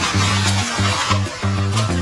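Background music: a bass line in a steady rhythm with plucked guitar.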